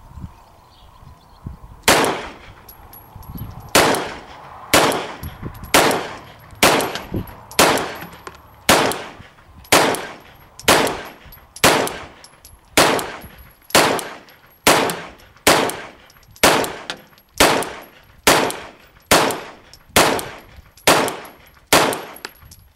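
Brugger & Thomet TP-9 9mm semi-automatic pistol firing single shots in slow, controlled succession, the first about two seconds in and then roughly one shot a second, about twenty in all.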